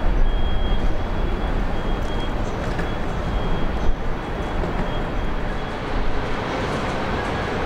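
Steady rumble and road noise of a moving vehicle, strongest in the deep low end, with a faint high whine that comes and goes.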